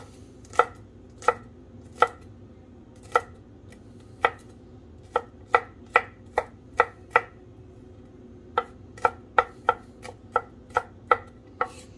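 Kitchen knife chopping garlic cloves on a wooden cutting board: sharp knocks of the blade on the wood, a few spaced strokes at first, then two quicker runs with a short pause between.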